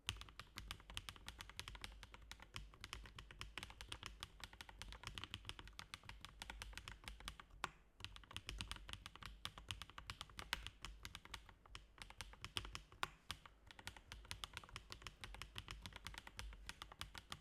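Continuous fast typing on a Lelelab Scorpio 46 mechanical keyboard with Chosfox White Fox v2 linear switches and PBTfans X-Ray PBT keycaps: a quick, steady run of many keystrokes a second, with a few short pauses.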